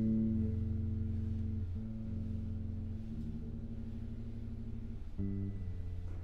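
Piano trio music: slow, held piano chords ringing over low bass notes, with a new chord struck about five seconds in.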